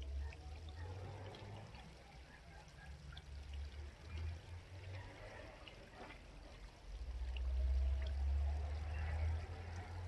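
Small brook babbling and trickling steadily. An intermittent low rumble comes and goes under it, strongest for a couple of seconds late on.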